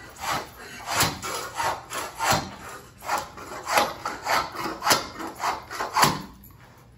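Long-handled floor scraper pushed in short, rough strokes across an old vinyl-tile floor, scraping up carpet padding, about two strokes a second. The scraping stops about six seconds in.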